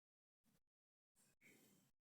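Near silence, with two very faint short noises, one about half a second in and a longer one from just after a second in.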